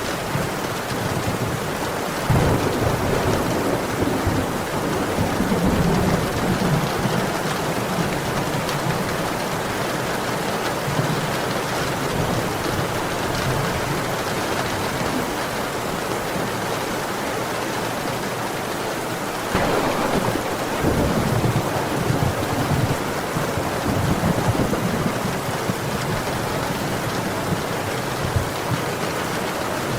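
Steady heavy rain with thunder rolling: a low rumble a couple of seconds in, and another starting suddenly about two-thirds through and rumbling on to the end.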